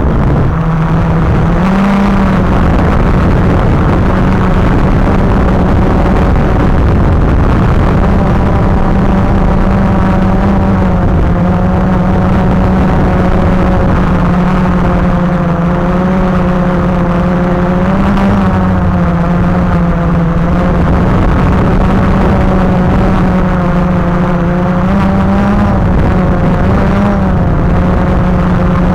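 Multirotor drone's electric motors and propellers humming steadily, the pitch wavering slightly up and down with throttle changes.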